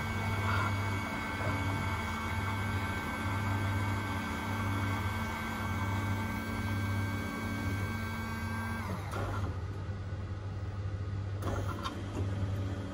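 Rex-Royal S2 automatic coffee machine running as it dispenses milk into a paper cup: a steady mechanical hum with a whine over a pulsing low hum. The whine cuts off with a falling pitch about nine seconds in as the milk stops, followed by a few clicks.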